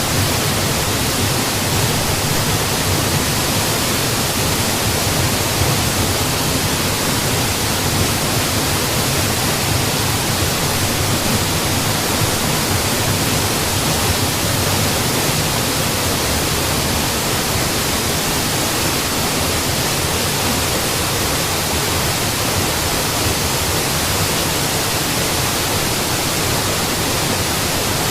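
Mountain waterfall rushing steadily: an even, unbroken roar of falling water with no changes.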